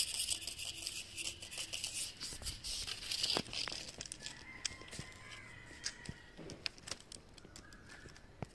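A cat's claws scratching and rasping on tree bark as it climbs: dense crackling scratches for the first few seconds, then sparser clicks and taps as it settles in the branches.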